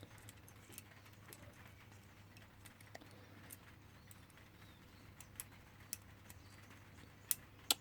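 Faint, scattered clicks and ticks of a lock pick working the pins of a Paclock padlock under tension, with two sharper clicks near the end. The picker takes the crunchy feel of the pins for serrated pins.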